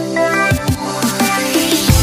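Background music: electronic music with synth notes and a drum beat, a heavy bass dropping in right at the end.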